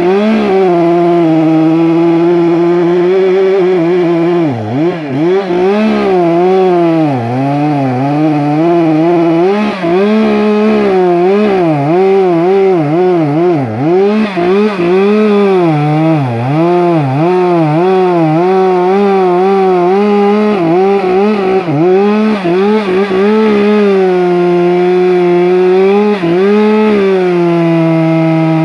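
Stihl MS 462 two-stroke chainsaw cutting through a wooden post: the engine runs at a steady high pitch, then for most of the time its pitch sags and recovers over and over as the chain bites into the wood, and near the end it runs steady again.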